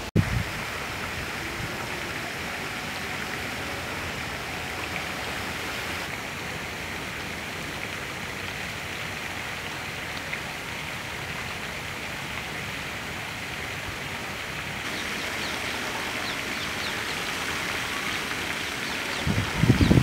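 Steady, even hiss of outdoor background noise with no clear call in it; faint high ticks come in about three-quarters of the way through. A brief knock right at the start and a cluster of low thumps at the very end.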